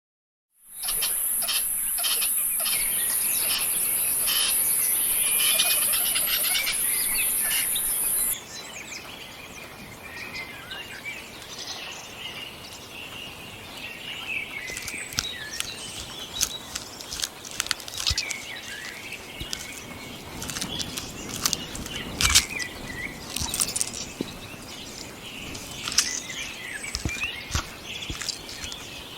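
Small birds chirping and calling, with scattered sharp ticks and rustles. For the first eight seconds a loud, steady, very high-pitched hiss or buzz lies over it, then cuts off suddenly.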